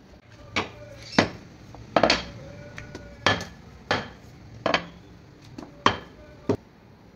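Wooden rolling pin knocking and clacking against a glass tabletop as dough is rolled out: about ten sharp knocks at uneven intervals, some with a short glassy ring.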